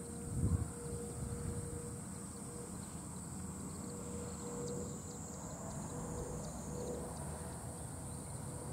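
Insects droning steadily in the summer fields, a high, even, unbroken tone, over a low rumble, with a brief bump about half a second in.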